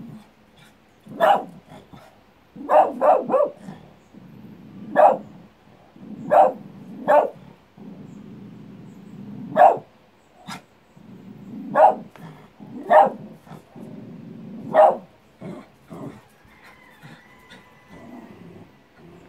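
Small shaggy dog barking, single barks and quick runs of two or three, about a dozen in all, with a low growl running between many of them; it is barking at the echo of its own barks. The barks grow fewer and fainter near the end.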